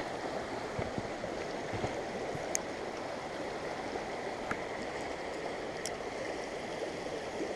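Small mountain stream running steadily over rocks, with a few faint clicks.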